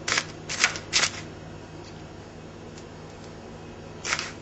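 Frozen crushed garlic being scraped out of a small plastic tub: three short scrapes in the first second, then a lull with a faint steady hum, and another scrape near the end.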